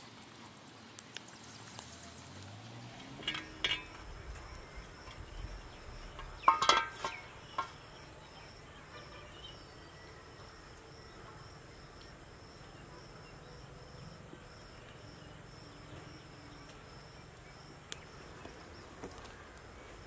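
An insect chirping in even high pulses, about two a second, over faint outdoor background, with a few knocks and a brief clatter of several strikes about a third of the way in.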